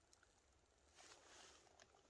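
Near silence: faint scattered ticks, with a brief soft rush of noise about halfway through.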